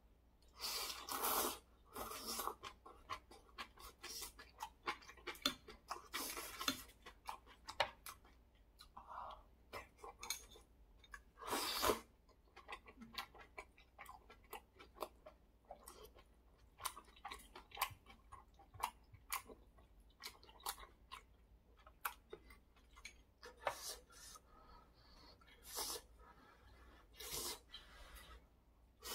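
Close-miked eating of malatang noodles: loud slurps, the strongest about a second in, around two seconds and around twelve seconds, between stretches of soft, wet chewing clicks.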